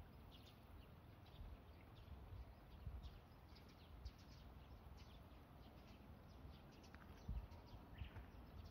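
Near silence with faint, scattered bird chirps over a low background rumble.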